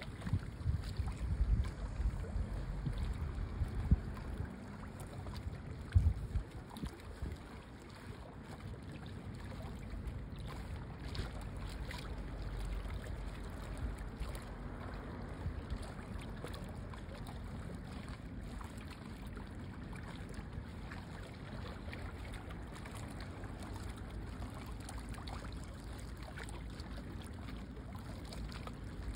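Wind buffeting the microphone in low gusts for the first several seconds, with two sharp knocks about four and six seconds in, then settling into a steady rush of wind and water at the seaside.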